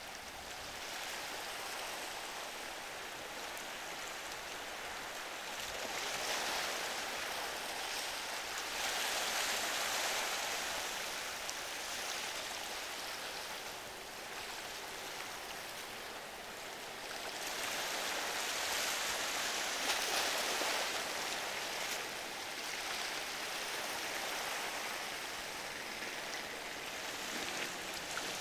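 Ocean surf washing and breaking at an inlet: a steady rush of water that swells louder twice.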